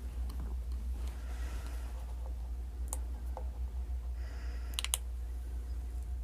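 Light clicking and handling noises over a steady low hum, with a single sharp click about three seconds in and a quick cluster of sharp clicks just before five seconds.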